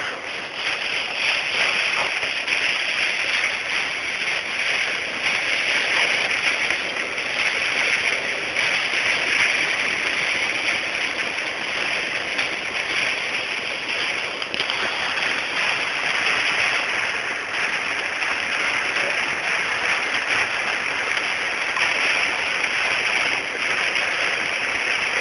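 Hail and heavy rain falling steadily, a dense hiss made of many small impacts.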